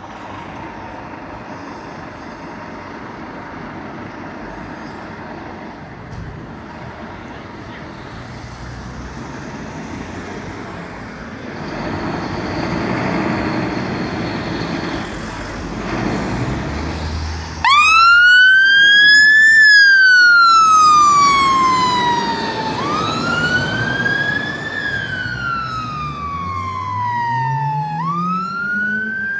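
Scania P280 fire engine (rescue pump) running with its diesel engine, the engine growing louder as it moves off. About 18 seconds in its siren starts suddenly and is the loudest sound, a slow wail rising and falling about every five seconds. Near the end the engine revs climb as it accelerates away.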